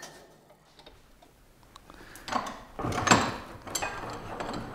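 A few short knocks and clunks, starting about two seconds in, as a length of aluminum extrusion is handled and set upright between the jaws of a bench vise.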